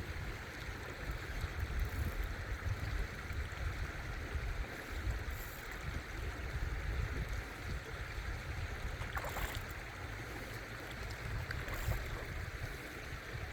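Steady rush of flowing river water, with low wind rumble buffeting the microphone.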